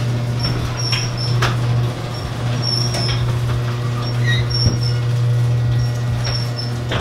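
Steady low hum, with scattered sharp clicks and brief high-pitched chirps over it.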